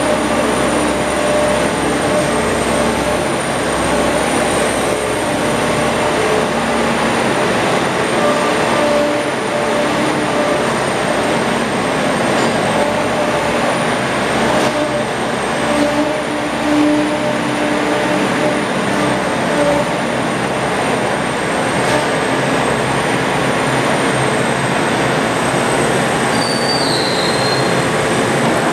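John Deere 1600 Turbo Series II mower's Yanmar four-cylinder diesel engine running steadily, with a thin high whine over the engine noise.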